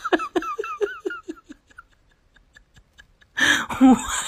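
Laughter: a quick run of short 'ha-ha' pulses that fade out over the first two seconds, then a louder burst of laughter near the end.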